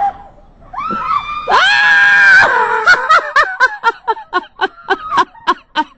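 A high-pitched shriek of laughter, held for about a second, that breaks into rapid bursts of laughing, about five a second.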